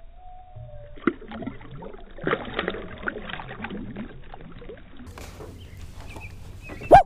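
Water splashing and sloshing as a released largemouth bass kicks away from a hand at the surface, starting about a second in and busiest for a couple of seconds. A short, sharp thump near the end is the loudest sound.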